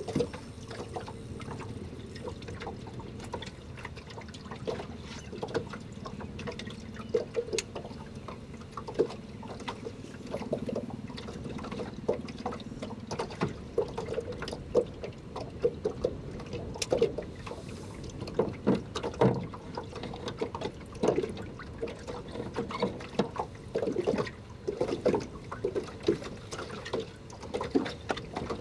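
Small waves lapping against the hull of a small fishing boat: an irregular run of short wet slaps over a steady hiss.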